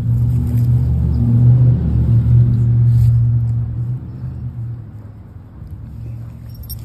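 A steady low engine hum, like a motor vehicle or machine running, that fades after about four seconds.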